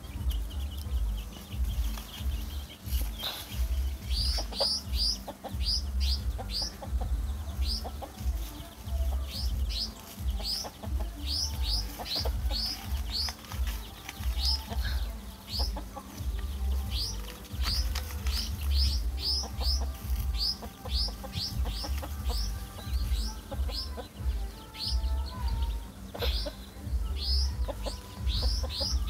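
Domestic chicks peeping constantly in short, high, falling peeps, several a second, while the hen clucks low now and then. A low pulsing rumble runs underneath.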